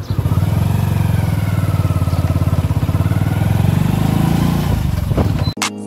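Motorcycle engine running at low road speed, a steady rapid low pulsing whose note drifts up and down a little. It cuts off suddenly near the end as background music comes in.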